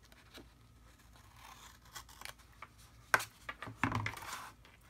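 Scissors snipping through thin cardstock with a faint papery rustle, then a few sharp clicks and taps near the end as the scissors are put down and the paper box is handled on a cutting mat.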